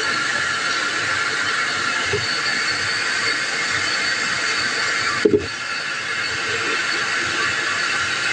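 Kitchen tap running with a steady rushing hiss of water. A single sharp knock, like a dish or utensil hitting something, comes about five seconds in.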